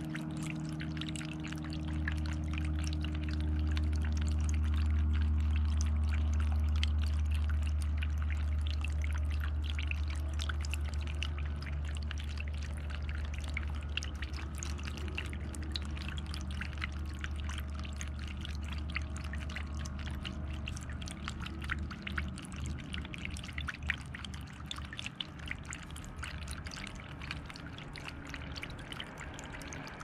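Water trickling and splashing steadily in a small birdbath fountain, many fine drips and spatters over a steady low hum that breaks up about two-thirds of the way through.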